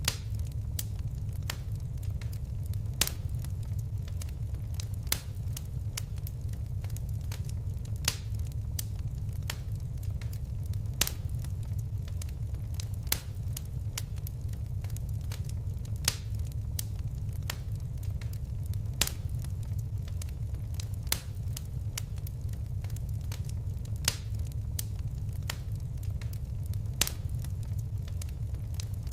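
Fire crackling: a steady low rumble of flames with a constant scatter of small crackles and a sharper, louder pop every two or three seconds.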